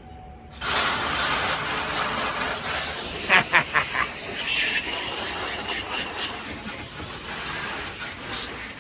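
Water spraying in a steady hiss as the refrigerator is washed down, starting suddenly about half a second in. A few brief clicks come a little before the middle.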